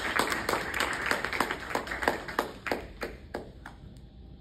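Audience applauding. The claps thin out and die away about three and a half seconds in.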